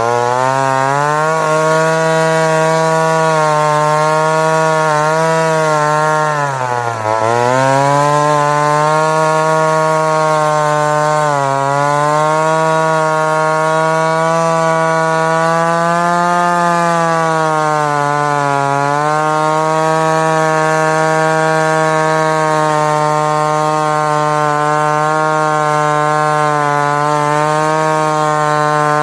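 Homelite Super Wiz 55 two-stroke chainsaw running at high speed while cutting wood. Its pitch dips several times as the chain bites, and it bogs down hard about seven seconds in before climbing back.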